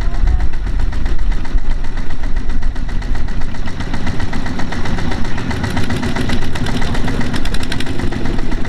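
Single-cylinder diesel engine of a Kubota walking tractor running with rapid, even firing pulses while the tractor sits mired in mud. The sound grows harsher for a couple of seconds past the middle.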